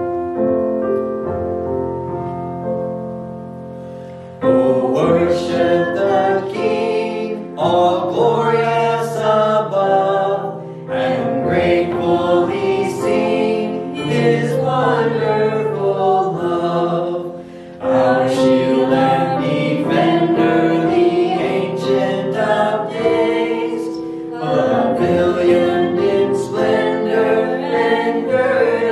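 A small worship team of men's and women's voices singing a hymn together over an instrumental accompaniment. A held chord opens, the voices come in about four and a half seconds in, and they go on in phrases of a few seconds each.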